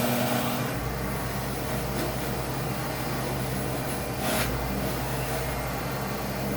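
A small motor running steadily with a hum and whir, with a brief louder scraping burst about four seconds in.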